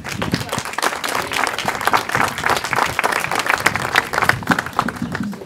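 An outdoor crowd applauding, a dense patter of many hands clapping that dies away near the end.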